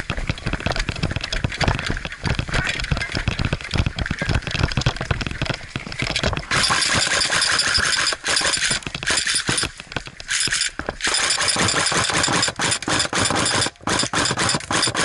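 Running footsteps and rattling gear for about six seconds, then an AK-pattern airsoft electric gun (AEG) firing long full-auto bursts with short pauses between them, its gearbox cycling in a fast mechanical rattle.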